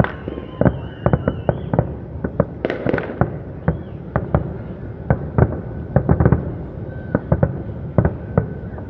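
Fireworks display: a rapid, irregular string of sharp bangs and pops, with a whistling tone wavering through the first couple of seconds and a burst of crackling hiss about three seconds in.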